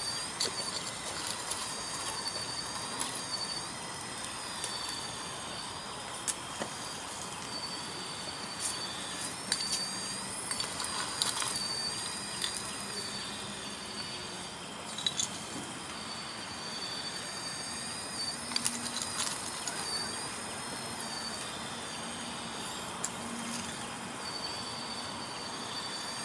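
Electric motors of a 1:16 RC model excavator whining at a high pitch that rises and dips as the boom and bucket move, stopping twice for a couple of seconds. Scattered clicks of gravel stones as the bucket digs and dumps.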